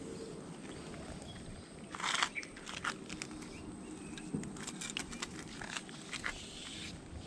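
Handling noise from fishing line being worked by hand: a brief rustle about two seconds in, then a scatter of small sharp clicks and crackles over a steady low outdoor background.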